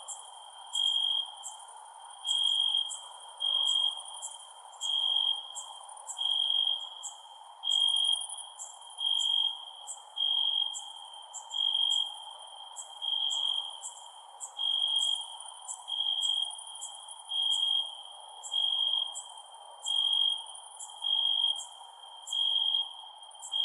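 Cricket chirping at night in a steady, even rhythm: one high trilled chirp roughly every second and a bit, each lasting about half a second, over a faint steady hiss.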